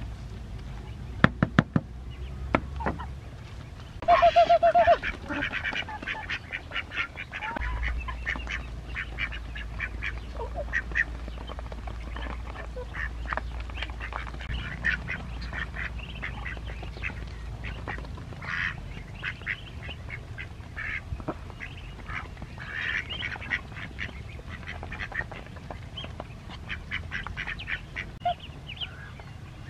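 Baby waterfowl peeping again and again in short high calls. A few sharp knocks come near the start, and one loud, longer call about four seconds in.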